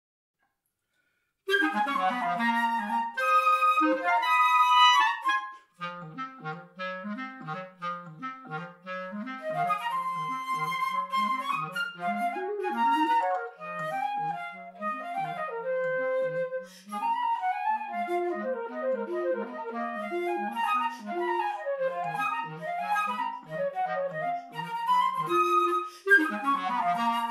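Flute and clarinet duet starting up about a second and a half in with a few loud held chords. It then drops to a quieter mambo groove: the clarinet plays a low, repeating figure beneath the flute's melody.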